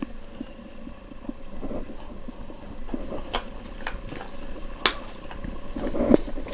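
A Rough Collie sniffing and nosing at a hard dog biscuit on carpet, with a few sharp clicks from the middle on. A louder crunch comes about six seconds in as she starts to bite into it.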